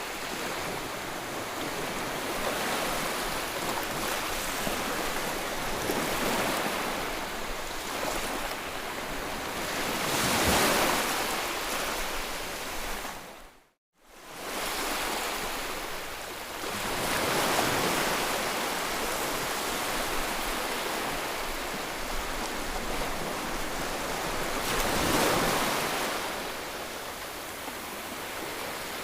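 Continuous soothing noise for settling a colicky baby: an even hiss that slowly swells and fades like surf every several seconds. About 14 seconds in it cuts out to silence for a split second and then swells back.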